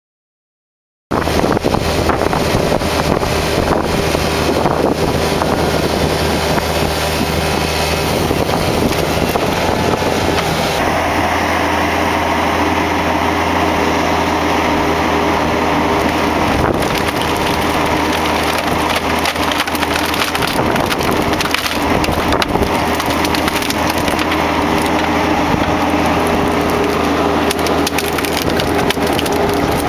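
Mini excavator's diesel engine running steadily under hydraulic load while the Black Splitter S2X 800 threaded cone splitter bores into a large log, the wood cracking and splintering. The sound starts suddenly about a second in.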